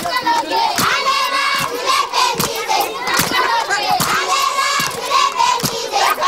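A group of children shouting and chanting together, with hand claps on a steady beat.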